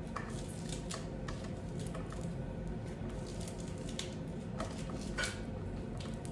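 Green beans being cut in half with a knife: light, irregular clicks and taps, several a second.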